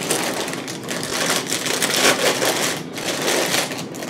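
Cardboard cereal box being torn open and its plastic inner bag pulled apart, a dense crinkling rustle throughout.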